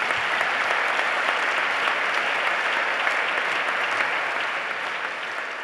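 Large audience applauding, a dense, steady clapping that eases slightly near the end.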